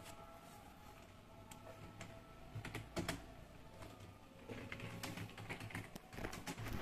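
Light, irregular clicks of typing on a computer keyboard, beginning a few seconds in and coming thicker near the end, over a faint steady room hum.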